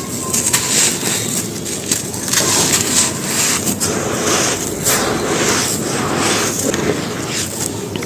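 Soft, crispy white chalky cylinders crunching and crumbling on a dry floor, a dense run of crisp crackles.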